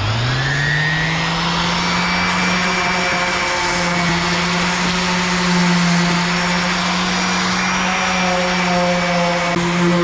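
DeWalt electric sander starting up, its motor winding up in pitch within the first half second, then running steadily as it sands the side of a john boat's hull.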